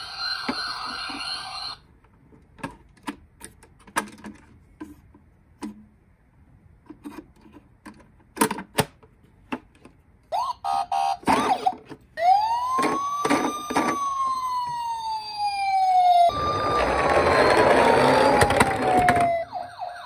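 Toy ambulance's electronic siren sound effect: a siren tone briefly at the start, then several seconds of hard plastic clicks and knocks as the toy is handled in its cardboard box. From about ten seconds in the siren sounds again, first a warble, then a wail that rises and slowly falls, and near the end a louder stretch of siren over a hiss.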